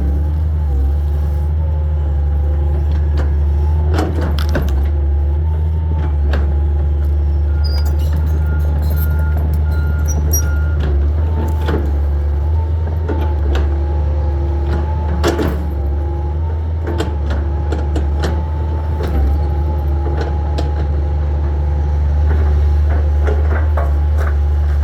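Hitachi 225 excavator's diesel engine running steadily under load, with a slightly wavering whine above it and scattered sharp knocks and cracks, louder ones about four and fifteen seconds in, as it works through debris and wood.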